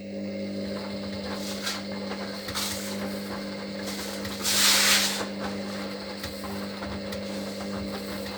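Hoover HLW585DC washer-dryer's drum motor running with a steady hum as the drum tumbles a small load during the wash, with a low rubbing swish. A brief, loud rush of noise comes about four and a half seconds in.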